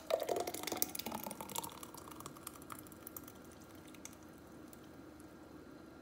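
Thick blended smoothie pouring from a blender jar into a glass. A dense flurry of wet clicks and plops comes in the first second or two, then thins to scattered ticks as the pour slows.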